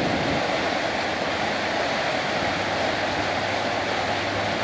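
Muddy floodwater rushing in a steady, unbroken roar along the edge of a paved walkway.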